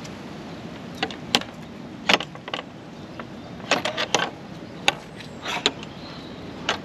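Metal spring latch on a wooden field gate clacking and rattling as it is lifted and the gate is pushed open: a string of sharp clicks and knocks.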